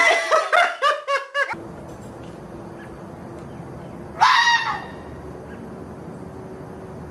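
Animal calls: a quick run of loud pitched cries in the first second and a half, then, against a steady hiss, one loud honk-like call about four seconds in.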